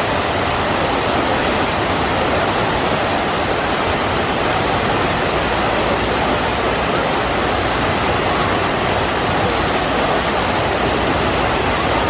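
Steady rush of white water pouring down the drops of an open water-slide channel and churning around its banked bend.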